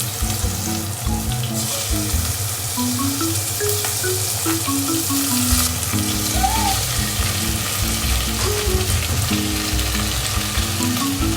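Food sizzling in a frying pan, a steady hiss throughout, with a gentle melody of background music over it.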